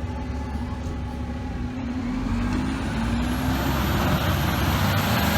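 Diesel engine of a heavy fire truck running on the street, getting steadily louder from about two seconds in as it closes in or pulls harder.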